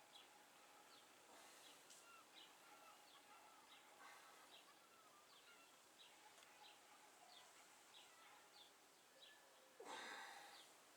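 Faint birds chirping, short high chirps repeating about twice a second with a few lower warbled calls, over near silence. A brief swish about ten seconds in.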